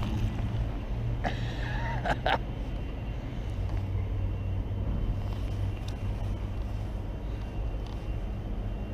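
A steady low rumble, with a brief higher, wavering squeak between about one and two and a half seconds in.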